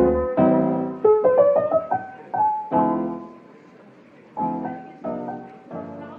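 Background piano music: soft chords and a melody of struck notes that ring and fade, with a short lull about two-thirds of the way through before a few more chords.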